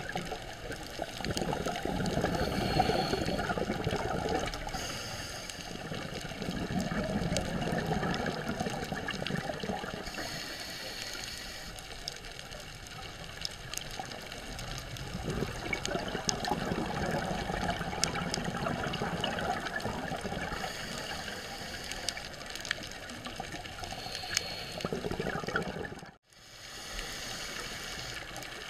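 Scuba diver's regulator breathing and exhaled bubbles heard underwater, a watery wash that swells and fades every few seconds with each breath. The sound cuts out briefly near the end.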